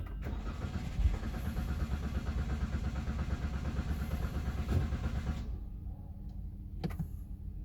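Toyota Rush starter motor cranking the engine with a steady pulsing rhythm for about five and a half seconds, the long crank of a hard start, then it stops, leaving a lower hum. A single click follows near the end.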